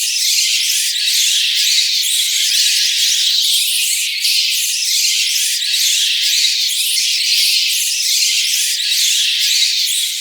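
A swarm of bats screeching: a dense, unbroken mass of many overlapping high-pitched squeaks with nothing low in it, swelling and easing slightly every second or so.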